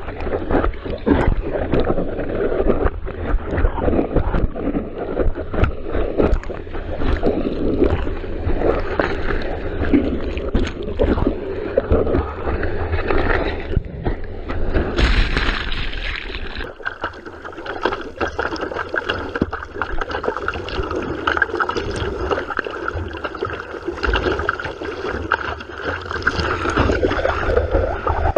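Sea water sloshing and splashing around a surfer and his board, heard close up through a GoPro, with a low rumble and many small knocks. The sound changes abruptly about halfway through, turning briefly hissier and then losing its low rumble.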